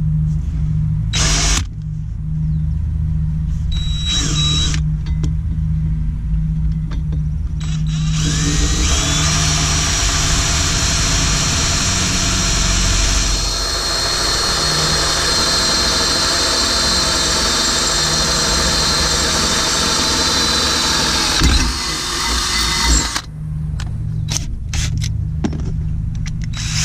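DeWalt cordless drill with a small twist bit boring a pilot hole through a steel mounting plate. It starts with a couple of short trigger bursts, then cuts steadily through the metal for about fifteen seconds with a whining motor note before stopping. A steady low hum runs underneath throughout.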